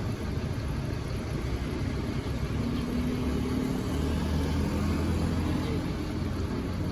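A road vehicle's engine rumbling steadily, growing louder about four seconds in.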